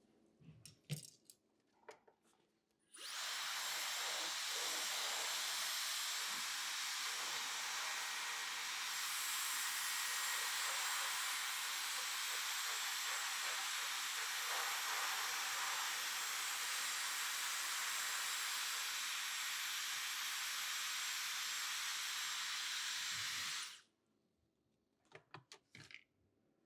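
Handheld hair dryer blowing for about twenty seconds, a steady airy hiss that switches on suddenly and cuts off just as suddenly, with a few small clicks before and after.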